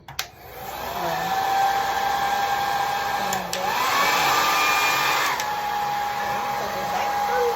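Conair mid-size hand-held blow dryer switched on with a click, then running with a steady rush of air and a motor whine. The whine steps up in pitch for about two seconds in the middle, then settles back.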